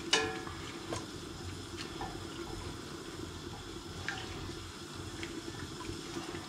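Gram flour and oil roux bubbling and sizzling gently in a heavy-bottomed pot, with a few light clicks of a spoon against the pot. The pot is still bubbling on its own retained heat.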